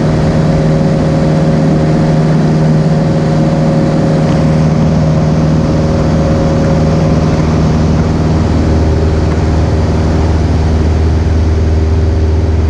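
Cessna 172's piston engine and propeller droning steadily in flight. A deeper hum grows stronger about four seconds in.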